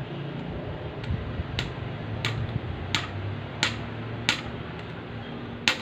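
Light hammer taps, about seven, evenly spaced roughly two-thirds of a second apart, driving the fitting into the end of a Shimano BH90 hydraulic brake hose held in a clamp.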